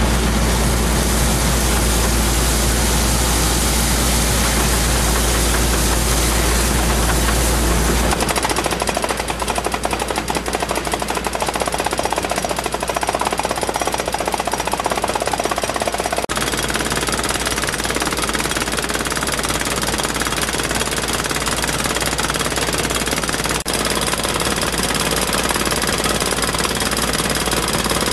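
HDD drill rig running, with a water hammer (water-driven down-the-hole percussion hammer) hammering rapidly and continuously as it drills. A heavy low rumble in the first several seconds drops away about eight seconds in, leaving the dense, fast hammering.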